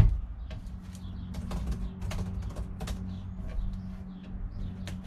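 Irregular light clicks of laptop keys being tapped, over a steady low hum, with birds chirping outside.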